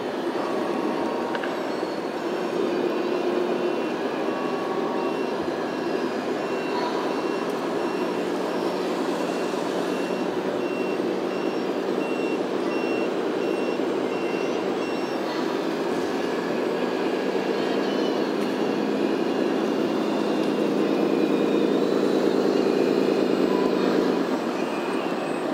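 Reversing beeper on a radio-controlled construction model beeping about twice a second for roughly the first half, over the steady drone of the models' engine sound, which grows louder near the end.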